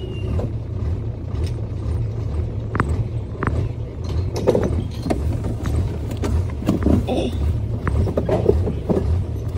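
Truck engine idling, heard from inside the cab: a steady low rumble, with a few sharp clicks and knocks.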